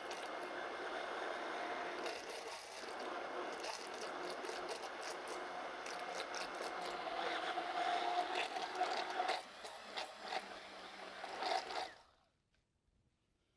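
Handheld immersion (stick) blender running in a plastic container of lemon juice and Dijon mustard, emulsifying a slow stream of olive oil into a vinaigrette, with scattered clicks; it cuts off suddenly about twelve seconds in.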